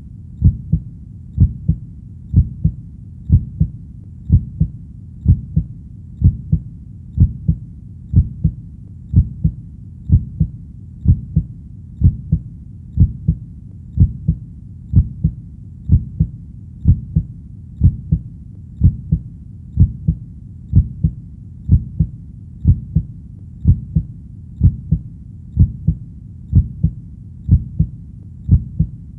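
Steady human heartbeat, each beat a low double thump (lub-dub), repeating evenly about once a second.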